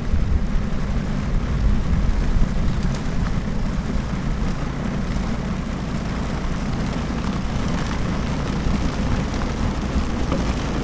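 Yard Machines snowblower's small engine running steadily.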